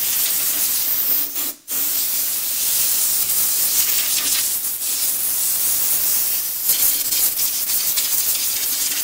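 Compressed-air blow gun hissing as it blasts rinse water out of a car wheel, drying it before primer goes on. The air stops briefly about one and a half seconds in, then runs on.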